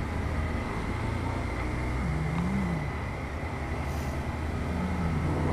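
Motorcycle engine running steadily while riding, heard from a camera mounted on the bike: a low, even engine note under road noise.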